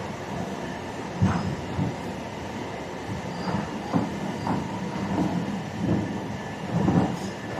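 Plastic moulding machinery running with a steady hum, broken by irregular short clanks and knocks.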